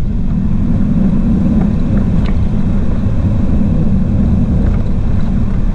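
Steady low rumble of a vehicle, an even noise with no clear tone.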